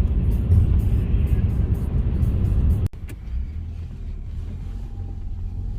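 Road noise and engine rumble inside a moving car on snowy roads. About three seconds in it cuts abruptly to a quieter, steadier low engine hum.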